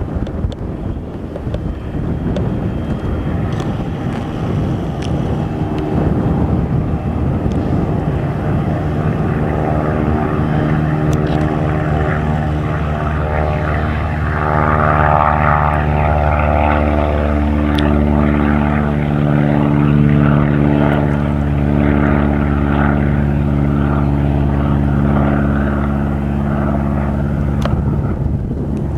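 Propeller airplane engine running steadily, with an even, droning pitch; it grows louder about halfway through, then eases slightly.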